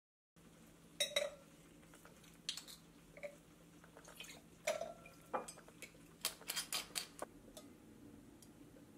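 Glass wine bottle and stemmed wine glass being handled on a stone countertop: a scattered series of light clinks and knocks, with a quick cluster a little past the middle, as rosé is poured and the glass is picked up.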